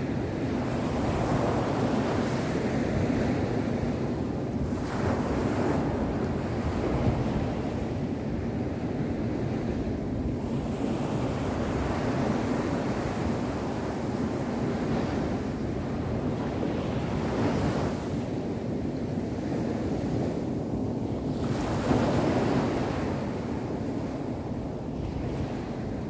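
Small surf breaking and washing up a sand beach: a continuous wash that swells into a hiss and ebbs every few seconds, with one louder break about three-quarters of the way through.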